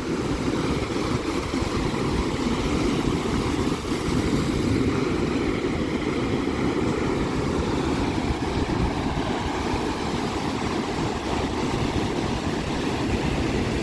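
Big waves on Lake Michigan breaking against the shore and rocks: a steady rush of surf with no single crash standing out.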